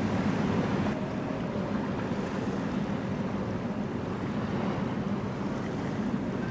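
Steady outdoor noise of wind on the microphone and water, with a faint low drone underneath.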